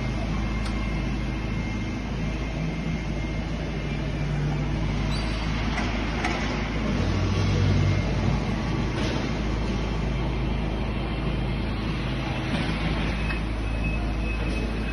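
Electric Linde reach truck driving and manoeuvring: a steady motor hum over general machine noise, swelling twice in the middle, with a thin steady high tone coming in near the end.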